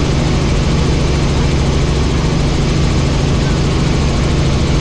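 Helicopter in flight: a steady, loud drone of engine and rotor, with a constant low hum under an even rush of noise.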